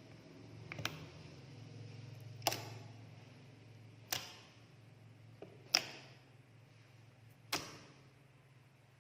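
Five sharp clicks or taps, evenly spaced about one and a half seconds apart, each with a short ring, over a steady low hum.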